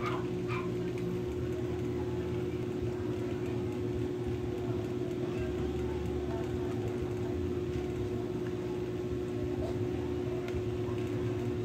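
Steady machine hum with one constant tone and a low rumble under it, with a few faint clicks near the end.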